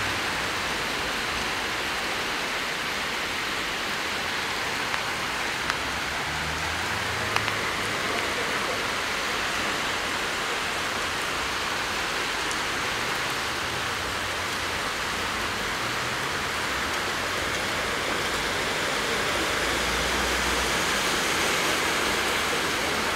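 Heavy rain falling steadily onto a flooded street, a dense even hiss, with a few faint clicks about five to seven seconds in.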